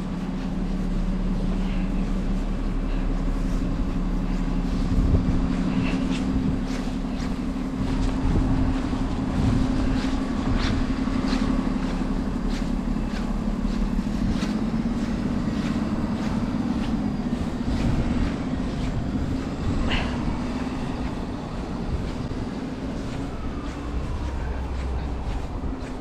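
Street traffic in a snowstorm: a vehicle's engine runs with a steady low hum, among short crunching steps or knocks.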